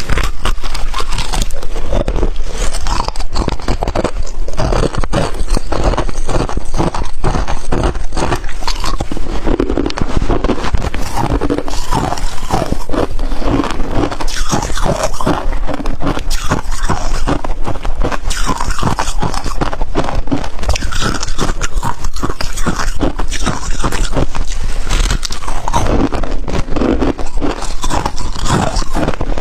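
Close-miked biting and chewing of powdery freezer frost, a dense, unbroken crunching crackle.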